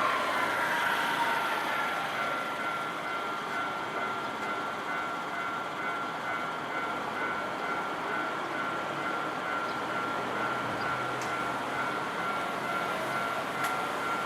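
Japanese level-crossing alarm on the Nankai Electric Railway, ringing steadily while a train runs past over the crossing. A falling whine sounds in the first two seconds.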